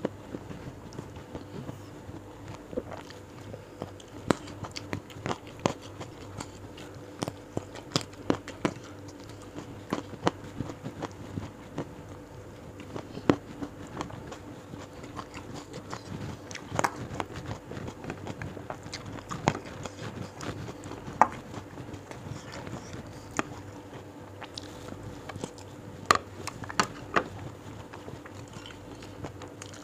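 Close-miked eating sounds: chewing and lip-smacking, with irregular sharp mouth clicks throughout over a faint steady hum.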